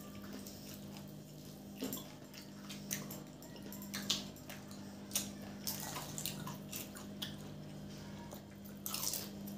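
Mouth sounds of people eating samosas with tamarind chutney: scattered short wet chewing smacks and clicks, a few a second, over a steady low hum.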